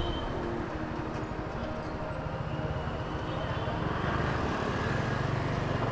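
Motorcycle engine running under way, with road and wind noise; it gets a little louder about four seconds in.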